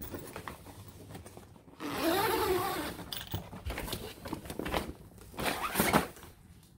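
Zipper on the fabric front door of a Creality 3D-printer enclosure being pulled open, with a long rasp about two seconds in. Near the end the fabric panel rustles and flaps as it is folded back.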